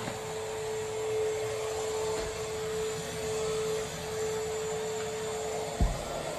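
Vacuum cleaner running with a steady whine, and a single thump near the end.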